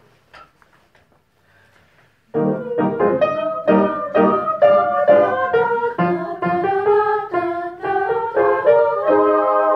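Piano playing the rehearsal passage, with quick struck notes and chords starting about two seconds in and ending on a held chord.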